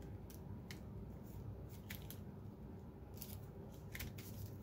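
Faint, scattered light ticks and rustles of paper as a glued die-cut paper lattice is pressed and smoothed down onto a paper envelope by hand.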